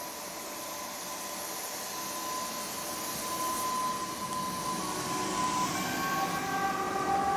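A PESA Elf (36WEa) electric multiple unit pulling away and gathering speed, its traction motors giving a whine that slowly rises in pitch. About five seconds in, more rising whine tones join as the cars come past, over a growing hiss of rolling noise.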